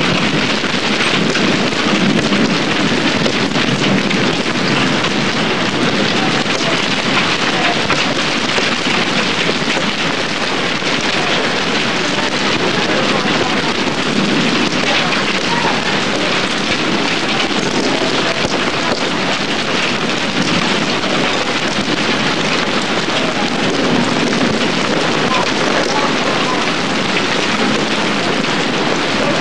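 Steady heavy rain pouring down, a dense even patter with no let-up.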